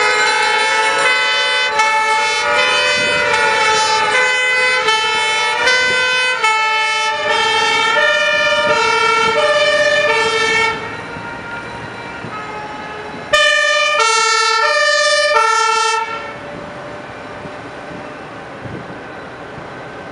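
Fire truck two-tone sirens: for the first several seconds several sound at once and overlap, with a gliding tone among them, then a single siren alternates high and low until it cuts off about ten seconds in. A second two-tone siren sounds loudly again from about thirteen to sixteen seconds, with passing truck engines under and after it.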